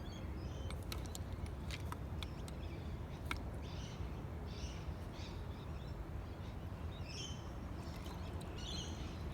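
Steady low outdoor rumble with a few faint sharp clicks in the first few seconds and several short high bird chirps later on.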